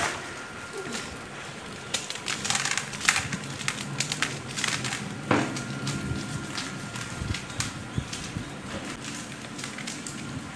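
Dried maize being shelled by hand: cobs twisted and rubbed so the kernels break off and drop into a plastic tub, making a run of irregular crackles and clicks.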